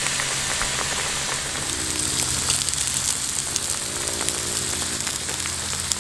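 Pork sizzling and crackling on the hot domed grill of a moo kratha pan, with the broth around it at a bubbling boil: a steady dense sizzle full of small pops.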